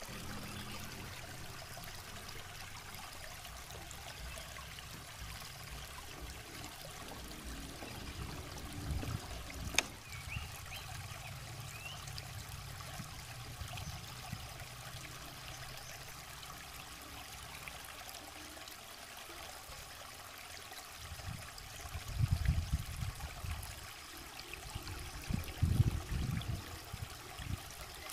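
Shallow rocky stream trickling steadily. Low bumps and rumbles on the microphone come about a third of the way in and again near the end, and are the loudest parts; there is one sharp click about ten seconds in.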